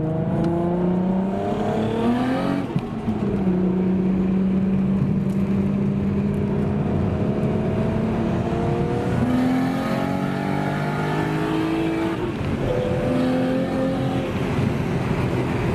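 Single-turbo Nissan Skyline R32 GT-R's RB26 straight-six accelerating under boost. Its pitch climbs, drops at a gear change about two and a half seconds in, holds steady for several seconds, then climbs again to a second gear change about twelve seconds in.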